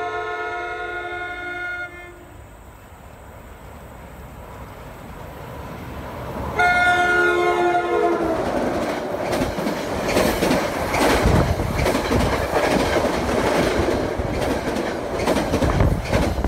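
New Jersey Transit commuter train sounding its multi-note air horn: one blast that stops about two seconds in, and a second, shorter one about six and a half seconds in whose pitch drops as the train passes. The rumble of the approaching train builds between the blasts, and then the train goes by with a loud rumble and clatter of wheels on the rails.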